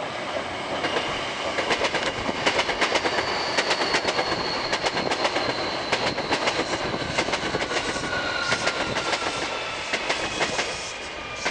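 Hankyu 1300 series eight-car electric train running past as it slows to a stop, its wheels clacking in quick runs of clicks over rail joints. Through the clatter the Toyo Denki VVVF inverter whine falls slowly in pitch as the train brakes.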